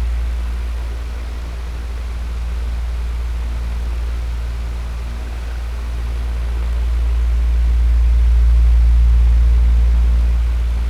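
Electric fan running steadily: a strong low hum under a soft airy hiss, its loudness swelling and fading slowly.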